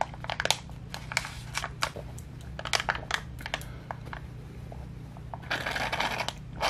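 Foil drink pouch crinkling and crackling in the hands while it is sipped through a straw: a run of sharp irregular clicks, then a denser rustle lasting under a second about five and a half seconds in.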